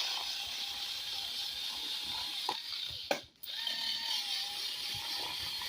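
Packaging being cut and opened: a steady hissing whir with a faint wavering hum, a few sharp clicks, and a brief break about three seconds in.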